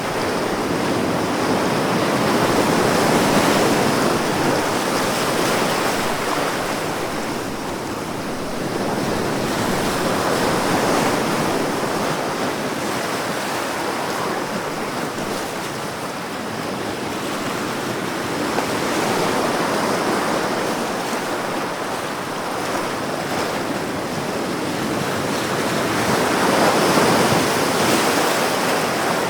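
Ocean waves breaking and washing in a steady surf, swelling and easing about every eight seconds.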